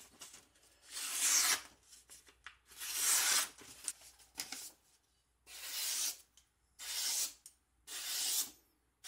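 Freshly sharpened Japanese kitchen knife slicing through newspaper held in the hand, about six separate strokes with a dry papery swish each, one of them short, as a test of the new edge.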